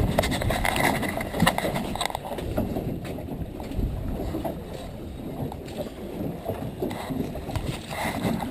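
Steady noise aboard a fishing boat at sea: a low rumble of wind and water against the hull, with a few small knocks.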